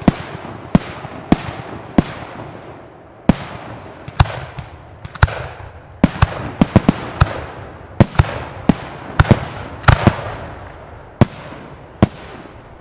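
Aerial firework shells bursting in a display: a fast, irregular string of sharp bangs, bunched in quick clusters about halfway through and again near ten seconds in, each followed by a rolling echo.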